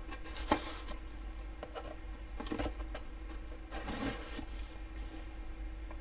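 Cardboard box being handled on a table mat: a sharp knock about half a second in, a few light taps, then a scratchy rustle around four seconds in as a blade slits the paper seal along the box's edge.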